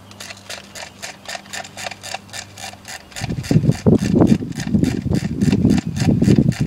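Ratcheting clicks of an airsoft M4 high-capacity magazine's winding wheel being wound to feed BBs, about four clicks a second. About three seconds in, a louder low rumble joins them.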